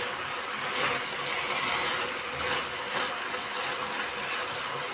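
A spatula stirring and scraping sugar-syrup rice around a nonstick kadhai over a steady hiss, the syrup drying out on high heat.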